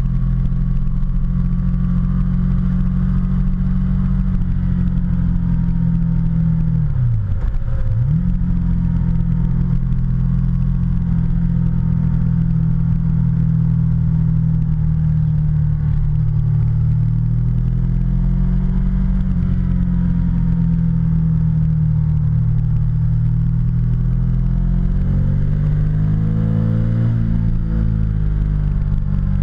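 Ducati motorcycle's V-twin engine running steadily at cruising speed, heard from the rider's seat. About seven seconds in, the revs drop sharply and climb straight back.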